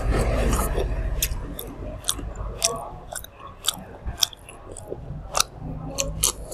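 Close-up chewing and mouth sounds of someone eating grilled meat by hand, with short, wet, sharp clicks about twice a second.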